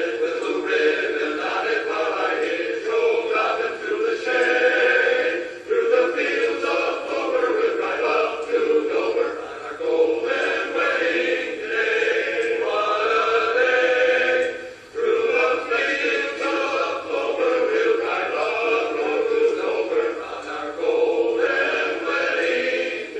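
Men's barbershop chorus singing a cappella in close four-part harmony, with short breaks between phrases.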